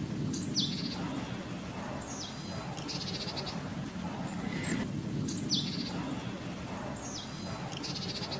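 A bird singing outdoors, repeating the same phrase every couple of seconds: a sharp, high, falling whistle followed by a short buzzy trill, over a low steady background hum.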